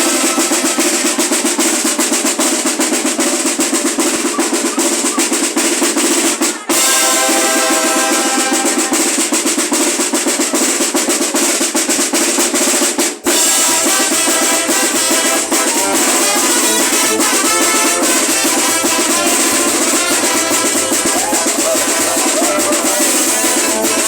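A carnival wind band (banda) playing, with fast snare drumming to the fore and bass drum and horns underneath. The music breaks off for an instant twice, a little before halfway and again about halfway through, where the recording cuts.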